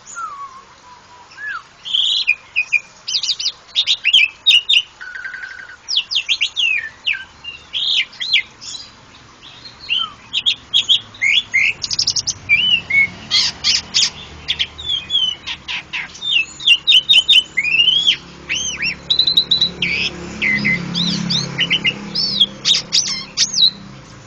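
Asian pied starling (jalak suren) singing a long, varied song: high whistles, rising and falling slurred notes and quick rattling runs, in a near-continuous stream.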